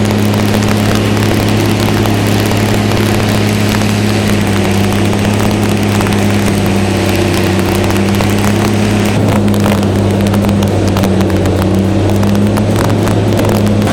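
Large wood grinder running steadily: a constant low engine hum under a dense crackle and snapping of wood being ground up.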